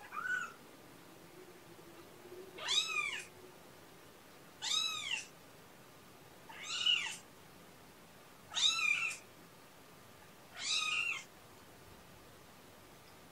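A kitten meowing over and over: one short faint meow at the start, then five loud meows about two seconds apart, each rising and then falling in pitch. These are the cries of a kitten out of its pen searching for its mother.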